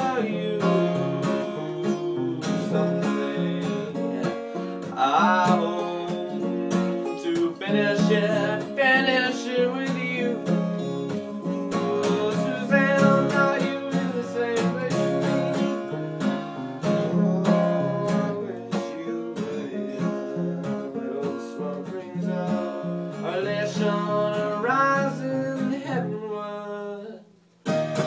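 Acoustic guitar strummed and picked, with a melody line that bends in pitch coming in over it at times. The playing breaks off for a moment near the end and starts again.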